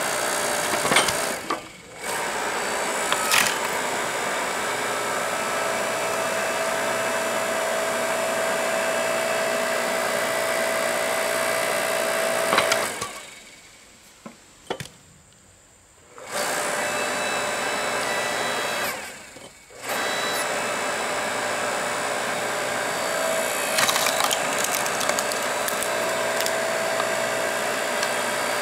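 Earthquake 5-ton electric log splitter's electric motor and hydraulic pump running with a steady whine. It stops briefly about two seconds in, for about three seconds near the middle, and briefly again around twenty seconds in, as the pump button is let go and pressed again. Sharp cracks of wet wood giving way under the ram come now and then.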